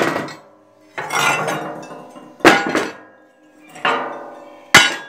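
Pieces of steel plate being tossed down one after another: about five metallic clanks, each ringing on and dying away over about a second.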